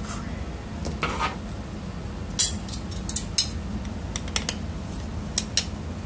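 Scattered sharp metallic clicks and clinks as a screwdriver and the removed hard drive's metal caddy are handled, loudest about two and a half seconds in. A steady low hum runs underneath.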